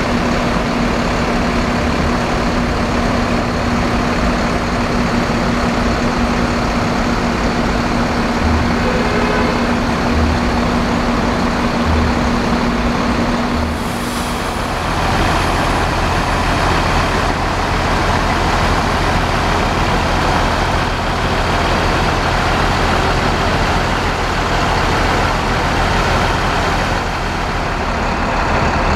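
Large coach bus's diesel engine idling, a steady heavy rumble with a constant hum; about halfway through the sound changes abruptly to a different, lower idling rumble.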